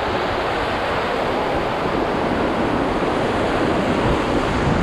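Whitewater rapids rushing steadily around a paddle raft.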